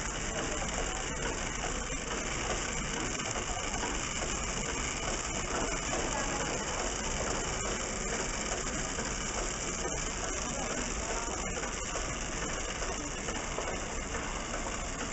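Servo-driven horizontal flow wrapper running: a steady mechanical clatter of feed and sealing mechanisms, with a few faint clicks here and there.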